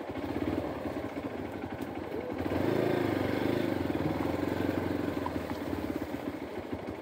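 Hero Xpulse 200 4V motorcycle's single-cylinder engine running at low speed in a low gear. It picks up with a little more throttle about two and a half seconds in, then settles back.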